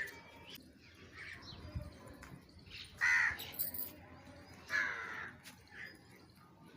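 Birds calling while grain is scattered for them: short harsh calls, with two loud ones about three and five seconds in and fainter calls between.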